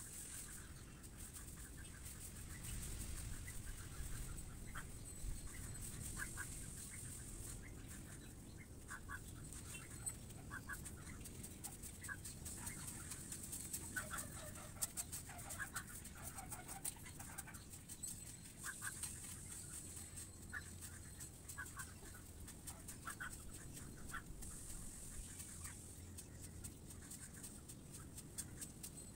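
Birds calling in short, scattered notes over a steady high hiss, with broom strokes scratching across bare dirt, thickest around the middle.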